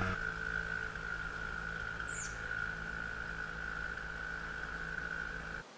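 Small outboard motor on a canoe running at a steady speed: a steady high whine over a low hum, cutting off suddenly near the end.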